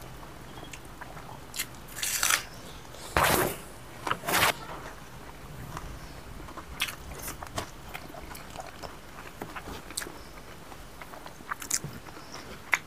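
Close-up chewing and mouth clicks of people eating rice and pork curry with their hands, with a few louder short bursts about two, three and four seconds in.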